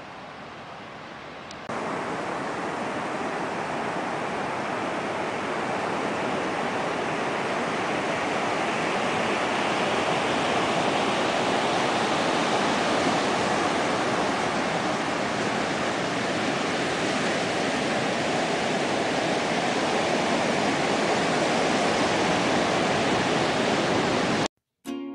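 Ocean surf breaking and washing up a sandy beach: a steady rushing wash that comes in suddenly about two seconds in, after a fainter hiss, and cuts off just before the end.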